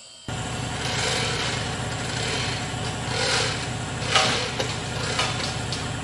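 A machine motor starts suddenly and runs with a steady low hum, while chains and steel knock and clink as a heavy steel weldment is rigged to a gantry's chain hoist, the sharpest clank about four seconds in.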